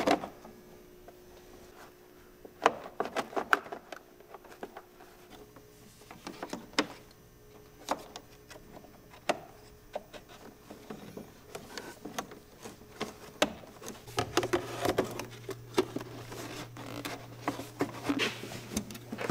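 Irregular plastic clicks and knocks from a car's plastic air-intake snorkel being handled with gloved hands and fitted over the radiator, busier in the second half.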